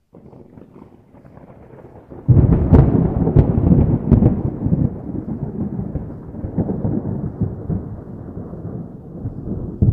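Thunderstorm: a low patter of rain, then about two seconds in a loud thunderclap that cracks several times before rumbling away slowly.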